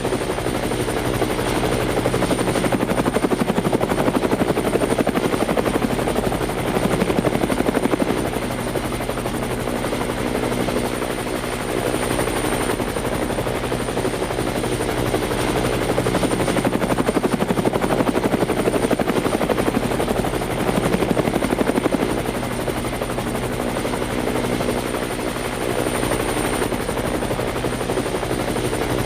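Helicopter running steadily, its rotor blades making a rapid continuous chop over a steady engine drone and a thin high turbine whine.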